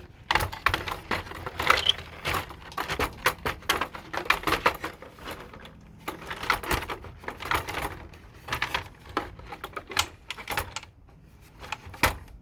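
Hard plastic parts of a Polaris 360 pool cleaner clicking, knocking and rattling as they are handled and fitted together by hand. The clicks come quick and irregular, with a lull near the end.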